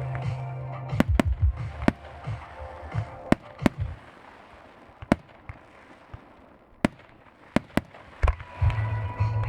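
Fireworks display: firework shells bursting with a dozen or so sharp, separate bangs at irregular intervals, over music with a heavy bass beat that fades out after about three seconds and returns near the end.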